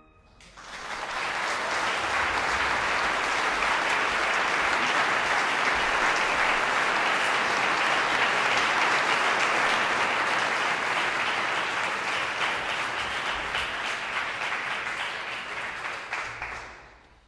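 Concert audience applauding steadily: dense clapping that swells up in the first second and dies away near the end.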